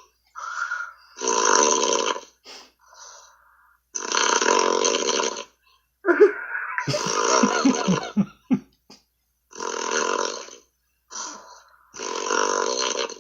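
A man snoring over a Skype call's audio: five long, harsh snores about every two and a half seconds, the one near the middle the longest.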